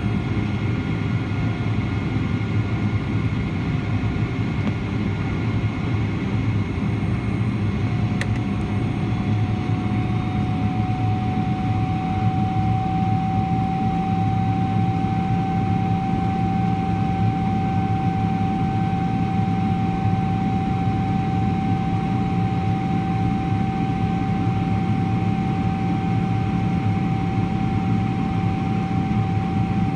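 Cabin noise of a Boeing 777-300ER climbing, heard at a window seat beside its GE90-115B engine: a steady low roar with a whining tone that rises slightly about ten seconds in and then holds.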